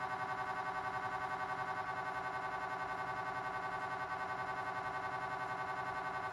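GE Signa Excite 1.5T MRI scanner running a sagittal T1 FLAIR (fast inversion recovery) pulse sequence: the gradient coils make a steady electronic tone of several pitches together, pulsing rapidly and evenly, with a slight change in its tone about two seconds in.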